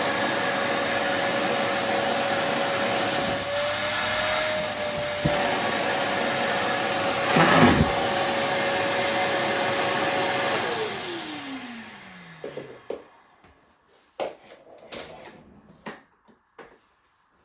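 Kärcher WD 3 wet/dry vacuum running steadily with a constant whine, with a brief louder rush of air about seven seconds in. About ten seconds in it is switched off and its motor whine falls as it spins down, followed by a few scattered clicks and knocks of handling.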